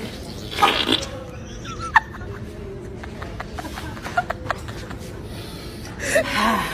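A short fart sound about half a second in, then a few light metallic clinks as a stainless steel steamer pot is handled on wire shelving, and a woman's laughter near the end.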